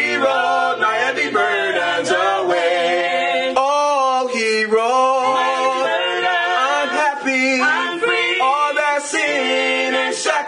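A small group of male and female voices singing a gospel song a cappella in harmony, holding long, wavering notes without clear words.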